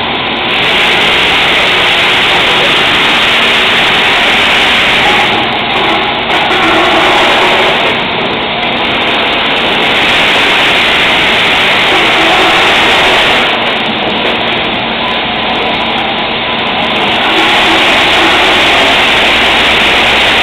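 TOWA automatic production machine running: a loud, steady mechanical noise that swells and eases every few seconds.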